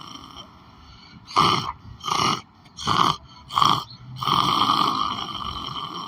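A person snoring while asleep: a long snore fading out, then four short, loud snorts about two-thirds of a second apart, then another long snore starting about four seconds in.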